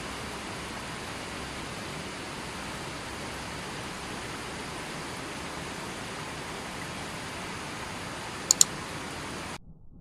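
Fast mountain river rushing over rocks: a steady, even rushing noise. Two sharp clicks come in quick succession near the end, and the water sound cuts off suddenly just after.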